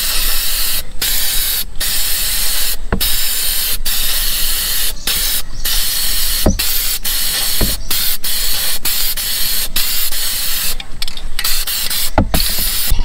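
Aerosol spray paint can hissing as it sprays paint onto water to lay a hydro-dipping film, in a string of bursts with short breaks between them.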